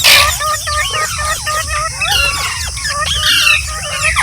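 Several green parrots chattering, with many overlapping short chirps, warbles and squeaks, and a loud harsh squawk at the start. A steady high-pitched hiss runs underneath.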